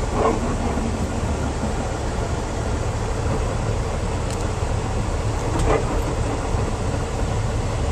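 Semi truck's diesel engine and road noise, heard as a steady low rumble inside the cab.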